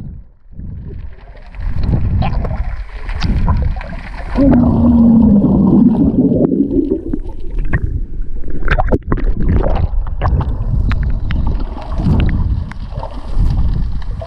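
Seawater sloshing and bubbling around a swimmer's camera, with scattered sharp clicks and a longer gurgle about four to seven seconds in.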